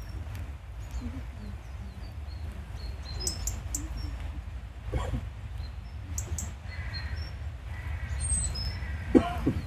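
Small songbirds giving scattered short, high chirps over a steady low rumble, with one louder, brief sliding sound near the end.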